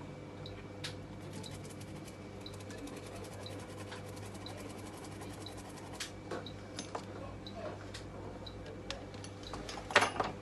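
Light clicks and scratches of small tools at work on a laptop motherboard, over a steady electrical hum. A quick run of fine clicks comes early, and a louder click comes near the end.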